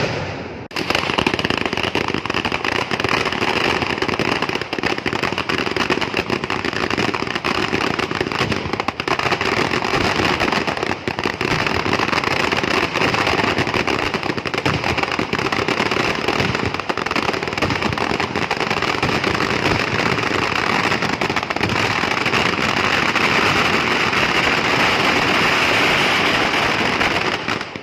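Long ground-level firecracker barrage: rapid bangs so close together that they merge into one continuous, loud crackling din. It starts about a second in and dies away near the end.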